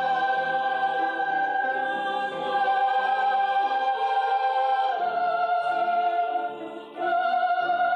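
Mixed youth choir singing long, held chords. The top line steps down about five seconds in, and the sound fades briefly before a lower chord enters about a second before the end.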